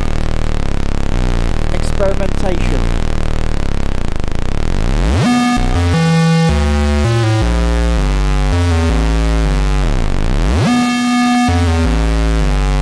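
A Commodore Amiga 1200 playing a looping OctaMED synth pattern: low, buzzy synth bass notes stepping between pitches. A sweep that falls and then rises comes just before ten seconds in, and the pattern repeats about every five seconds.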